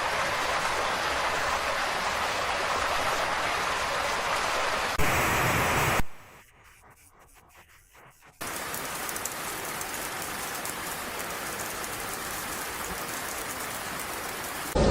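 Steady hiss of rain and running water. It cuts out to near silence for about two seconds a little after the middle, then resumes.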